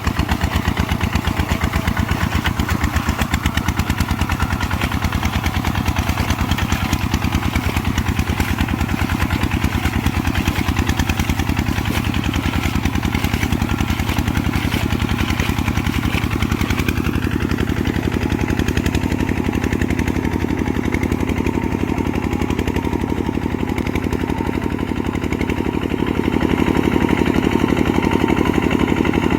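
Kubota RT140 single-cylinder diesel engine running steadily with an even, rapid chugging beat. It grows a little louder near the end.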